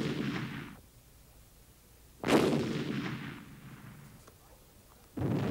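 Gunfire from a mounted drum-fed test gun: the tail of a report fades at the start, then a sharp report about two seconds in and another near the end, each followed by a rumbling echo that dies away over about a second.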